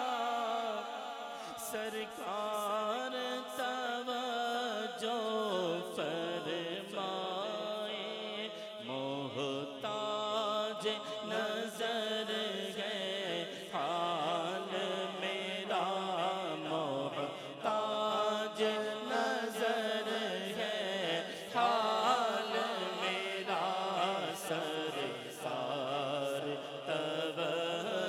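A man singing a naat, an Urdu devotional hymn, solo and unaccompanied into a microphone, in long drawn-out phrases that waver and glide in pitch.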